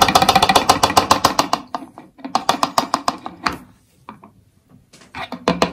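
Water and leaves sloshing in a plastic bottle shaken hard by hand: a fast, even rattle of about ten strokes a second that slows into a few separate shakes after about two seconds and stops, with a few more shakes near the end.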